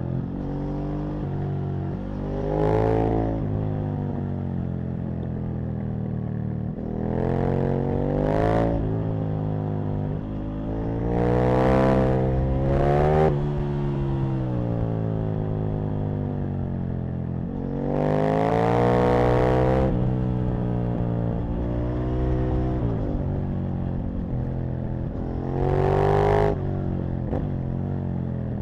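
Aprilia RSV Mille's V-twin engine heard on board while riding, its revs climbing and falling over and over. There are several hard, loud pulls where the pitch rises, then drops back between them.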